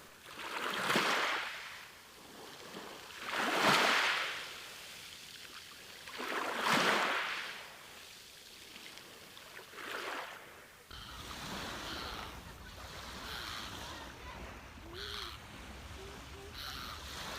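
Sea waves washing in on a beach, four swells about three seconds apart, each rising and falling away. About two-thirds of the way through, the sound changes to a steadier low surf rumble with faint voices or bird calls.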